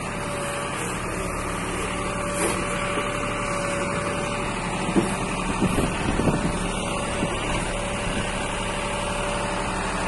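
A tractor's diesel engine runs steadily while it powers a tractor-mounted BULL backhoe digging, with a steady whine over the engine. A few sharp knocks come about five to seven seconds in.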